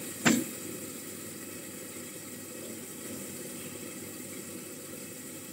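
A single sharp clank of a kitchen utensil or pan, then a steady rushing noise.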